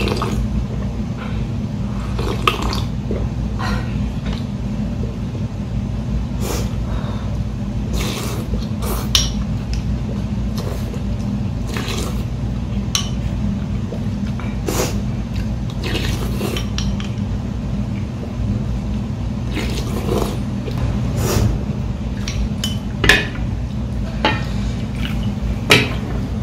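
A metal ladle and spoon clinking against ceramic bowls every second or two, with broth being ladled and poured into a small bowl, over a steady low hum.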